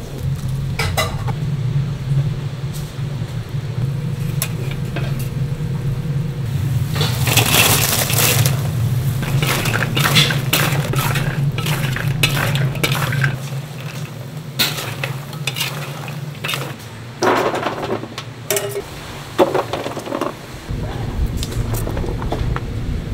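Metal spatula scraping and knocking against a large cast-iron cauldron (gamasot) as boneless fried chicken pieces are tossed in sticky sweet-and-spicy sauce. A steady low hum sits under it for most of the time and fades out about two-thirds of the way through.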